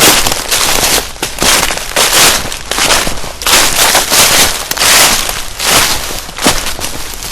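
Footsteps crunching through dry fallen leaves and twigs on a forest floor at a walking pace, about one loud crunch a second.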